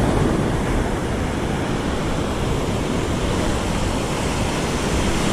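Ocean surf washing onto the beach, a steady rush, with wind rumbling on the microphone.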